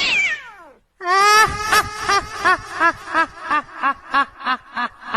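Ghostly cackling laugh sound effect: a drawn-out run of evenly spaced 'ha-ha-ha' pulses, about three a second, growing fainter. It follows a falling wail that dies away in the first second.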